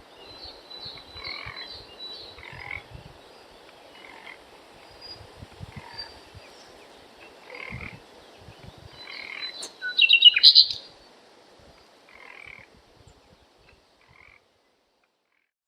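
Frogs croaking: a run of short repeated calls over a soft background hiss, with a louder burst of high chirping calls about ten seconds in. The calls die away about two seconds before the end.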